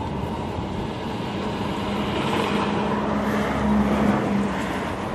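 A motor vehicle driving past, its engine hum and road noise swelling to a peak about four seconds in and then fading.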